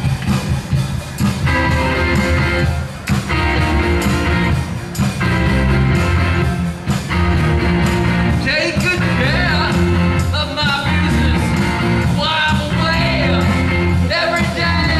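Live rock and roll band playing: electric guitar, bass guitar and drums with a steady beat, and a man's lead vocal coming in about halfway through.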